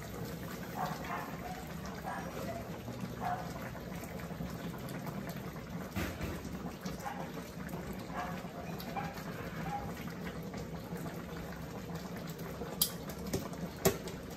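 Pork asado sauce simmering and bubbling steadily in a wok on a charcoal stove. Near the end come a few sharp clicks as a hand grater knocks against the wok.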